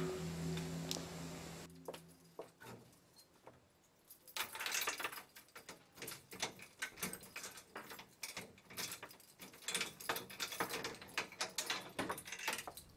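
Keys jangling and rattling against a padlock on a metal grille gate as it is unlocked: a busy run of small metallic clicks and rattles. A held musical tone fades out at the start.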